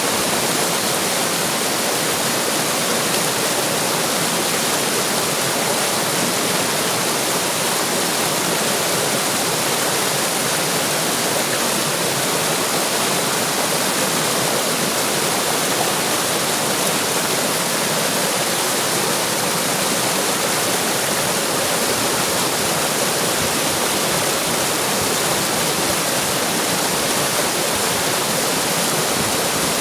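Running water rushing and splashing in a steady, unbroken wash of sound.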